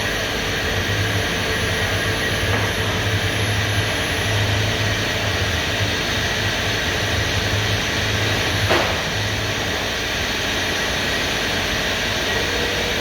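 4-axis CNC router running, a steady mechanical noise with a constant high tone, and a low hum that cuts in and out repeatedly. A single sharp click comes near the middle.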